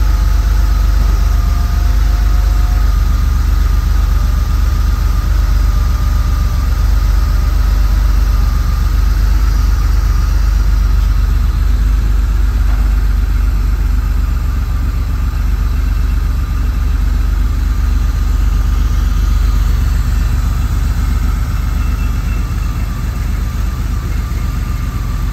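1989 Porsche 964 Carrera 4's air-cooled 3.6-litre flat-six idling steadily just after a cold start, with a steady whine over its low rumble. It grows slightly quieter in the second half.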